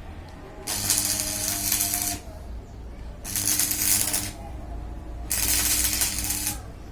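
A motor-driven tool with a metallic rattle, run in three short bursts of about a second each, roughly two seconds apart.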